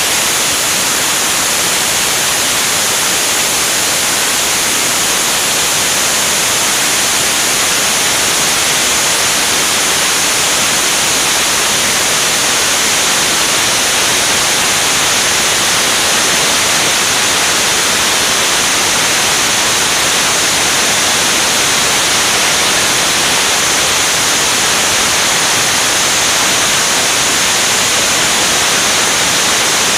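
Steady roar of airflow rushing over a camera mounted on an aircraft's wing in flight: a loud, even hiss that does not change.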